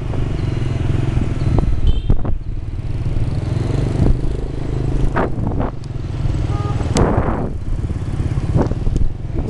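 Motorbike engine running steadily under way, heard from the bike itself, with the noise of surrounding street traffic mixed in.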